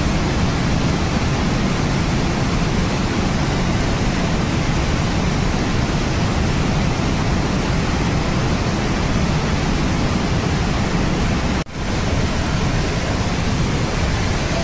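A mountain stream in flash flood after a cloudburst, rushing in a steady roar of water. The sound breaks off for an instant about twelve seconds in.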